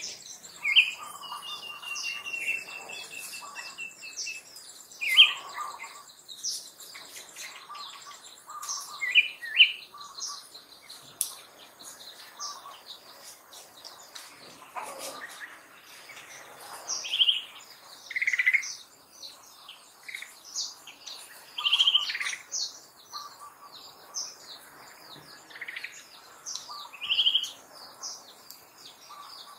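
Birds chirping, short high calls coming irregularly every second or two, with one drawn-out, slightly falling whistle about a second in.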